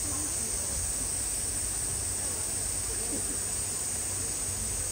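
Steady outdoor hiss with a high, even sizzle on top and faint, distant murmuring voices.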